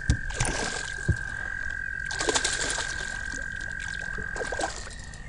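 Frogs trilling: two long, steady, high-pitched trills that overlap, one stopping shortly before the other near the end. Over them come short bursts of splashing and knocking as a hooked bowfin is netted beside a boat.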